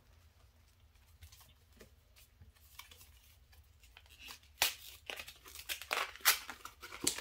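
Foil wrapper of a Pokémon booster pack crinkling and being torn open by hand. There is light handling at first, then a run of sharp crackles and rips in the second half.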